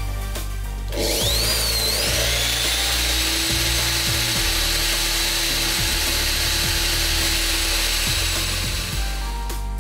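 Electric drill starting up about a second in, its motor whine rising and then holding steady as it spins a copper wire through folded sandpaper, with a steady abrasive hiss. It stops near the end.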